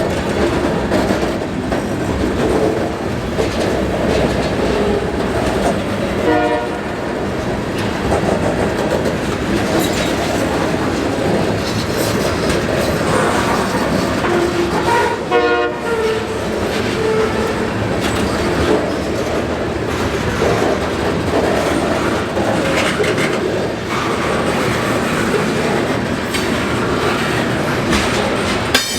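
CSX local freight train, led by two EMD diesel-electric locomotives, passing close by with steel wheels clattering over the rail joints. Two short pitched sounds stand out, about a fifth of the way in and again about halfway.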